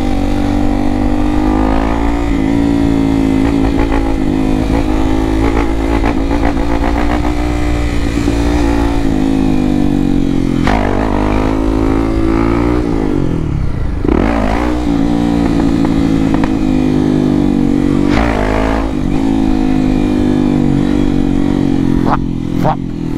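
Honda XRE 300's single-cylinder four-stroke engine running through an aftermarket Doré exhaust while riding. The revs dip and climb again several times as the throttle is eased and reopened, with the deepest drop a little past halfway.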